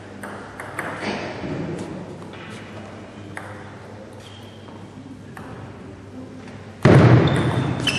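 Scattered taps and pings of a celluloid table tennis ball on tables and bats, with echo from a large hall. About seven seconds in, a sudden loud burst of noise cuts in and then slowly dies away.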